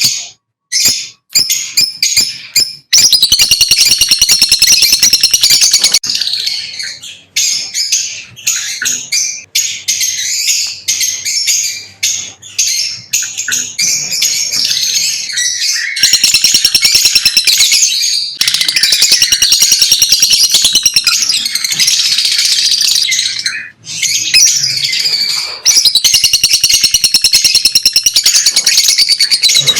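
Lovebirds chirping and chattering in loud, shrill, rapid runs of high-pitched calls, with brief pauses near the start and about two-thirds of the way through.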